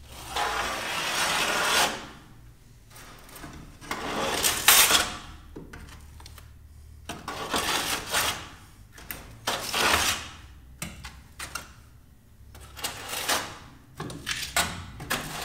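A mud knife scraping and smoothing fireplace mortar across a firebox floor, in about six strokes of a second or two each with short pauses between.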